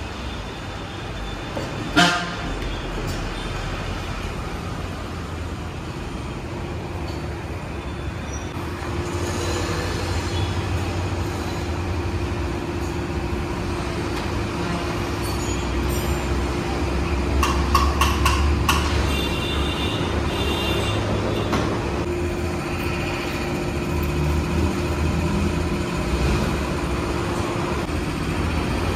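Tyre-shop machinery hum with one sharp metallic knock about two seconds in and a few metallic clinks in the second half; near the end a wheel is spinning on a wheel balancer.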